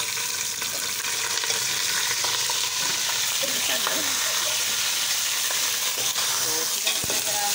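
Raw chicken pieces frying with browned onions in hot oil in a cooking pot, sizzling steadily just after being added.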